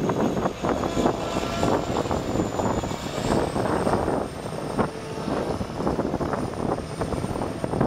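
John Deere 4930 self-propelled sprayer's diesel engine running as the machine drives slowly. A thin high whine rises slightly in pitch about three seconds in.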